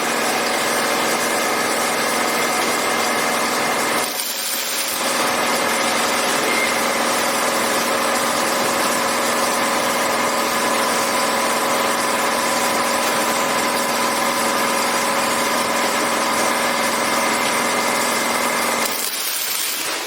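Rebar cage welding machine running with a steady machine hum over a hiss. It cuts out briefly about four seconds in, resumes, and stops shortly before the end.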